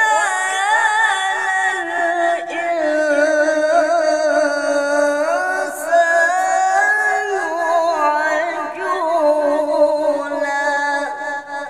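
A man reciting the Quran in the melodic tilawah style: one long phrase held on a single breath, its pitch wavering through ornamented turns, breaking off about eleven seconds in.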